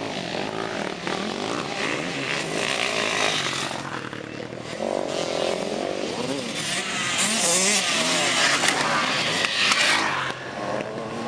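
Motocross dirt bikes revving hard up and over a dirt jump, engine pitch rising and falling with the throttle. A second bike adds to it, loudest in the second half, and the sound falls away sharply near the end.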